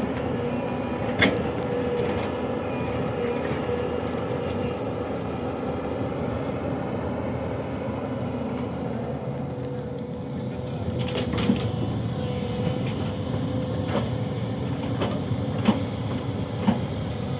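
Heavy diesel construction machinery running steadily, with a steady tone over the engine noise. A sharp knock comes about a second in, and several more knocks follow in the second half.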